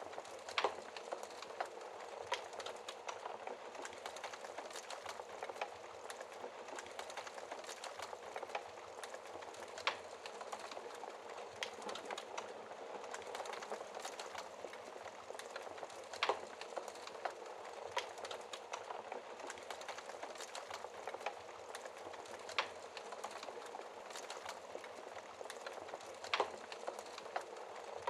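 Fireplace fire crackling: a steady bed of small snaps and hiss, with a handful of louder single pops every few seconds.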